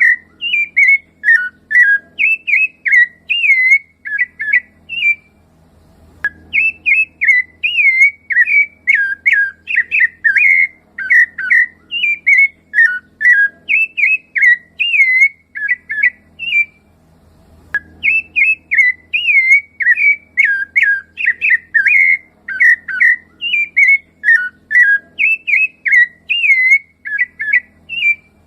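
Rufous-bellied thrush singing: a long run of short, clear whistled notes that rise and fall in pitch, pausing twice for about a second.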